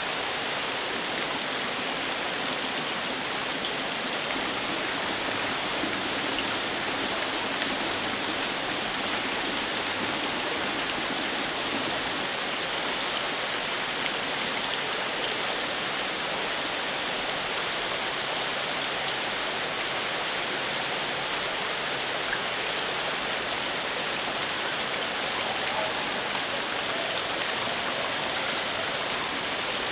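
Steady splashing of many water jets from perforated pipes falling into fish-hatchery rearing tanks.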